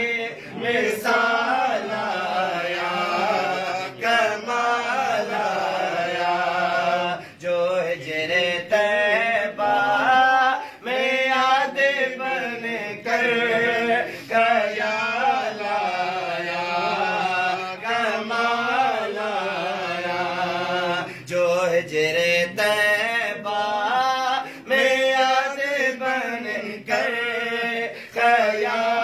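A man chanting a Sindhi Sufi devotional song in praise of a saint, in long wavering sung lines with short breaks between phrases.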